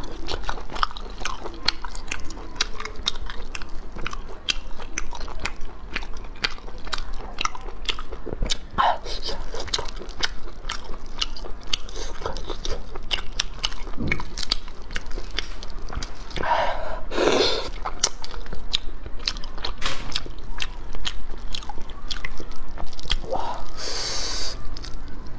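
Close-up eating sounds of stir-fried snails in the shell: a steady run of small clicks and chewing as the shells are handled and the meat eaten, with a few longer, louder mouth sounds about two-thirds of the way in and near the end.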